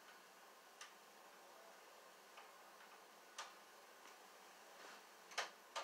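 Near silence: quiet room tone broken by a few faint, irregular clicks, the clearest one near the end.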